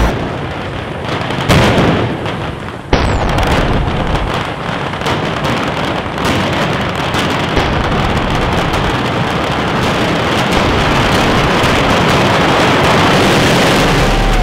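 Daytime ground fireworks barrage: a dense, unbroken crackle of countless rapid firecracker bangs merging into one rain-like roar. It jumps louder about three seconds in and keeps building slowly after that.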